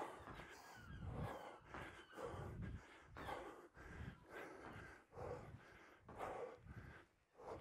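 A person breathing hard while doing squat jumps, a forceful breath or gasp about once a second in time with the jumps.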